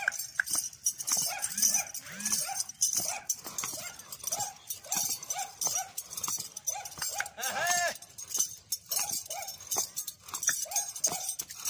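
A dog barking loudly and repeatedly in quick short barks, several a second, with one longer, louder bark about two-thirds of the way through.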